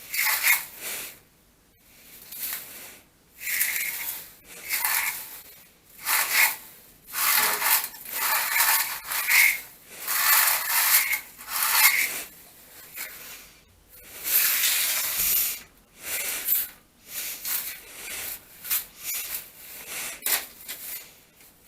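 Coarse renovation debris being gathered up off the floor: a run of about fifteen scraping, rubbing strokes, each lasting up to a second, with short pauses between them.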